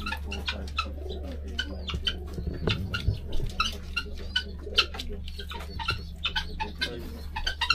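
A flock of helmeted guineafowl and pigeons calling in a crowded coop: many short, sharp calls overlap in a quick, uneven stream, with lower cooing among them. A steady low hum runs underneath.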